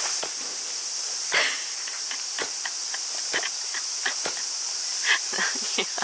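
Steady, high-pitched chorus of insects, with scattered light clicks and knocks over it about once a second.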